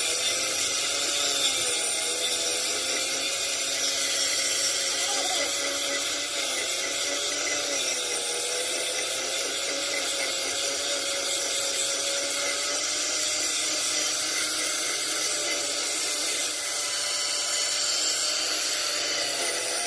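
A power tool running continuously: a motor whine that wavers slightly in pitch over a steady hiss.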